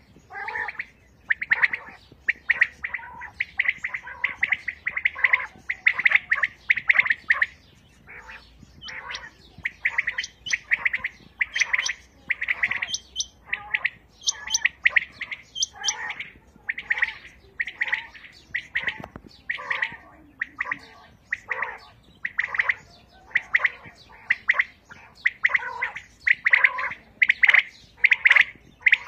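Many caged quails calling at once: short, sharp, high calls repeated several times a second and overlapping into a steady chorus.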